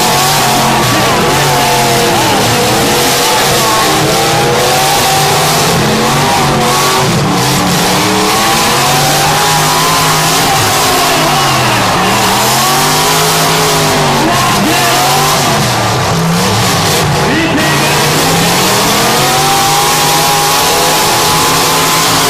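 Several demolition derby cars' engines revving up and dropping back again and again, their notes overlapping, over a steady loud wash of noise.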